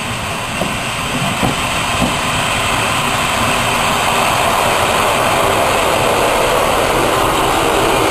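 Fiat diesel railcar pulling into the platform and passing close by, its engine and wheels on the rails growing steadily louder as it nears, with a few sharp clicks in the first couple of seconds.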